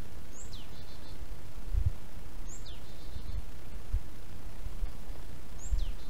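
A songbird sings the same short phrase three times, about two seconds apart: a sharp downward whistle followed by a quick run of four or five notes. Beneath it runs a steady hiss with a few soft low thuds.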